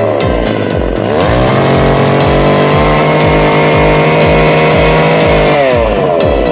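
Tanaka 335 small two-stroke engine revved up about a second in, held at high speed for several seconds, then let back down near the end, over background music with a steady beat.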